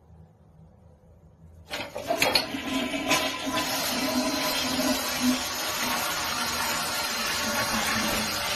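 Toilet flushing: water rushing through the bowl starts suddenly about two seconds in and runs on steadily, with a few knocks near its start.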